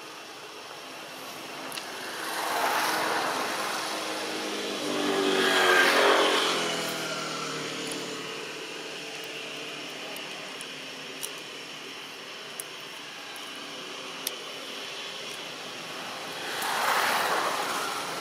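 Motor vehicles passing by three times, engine noise swelling and fading away each time. The loudest pass comes about six seconds in. A few faint sharp clicks fall in between.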